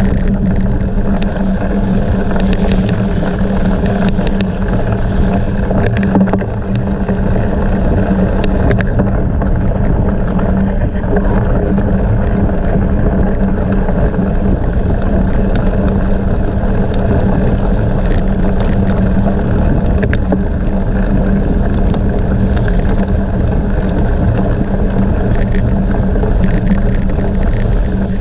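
Steady loud rumble of a gravel bike being ridden, tyre and wind noise on the microphone, with a constant low hum under it.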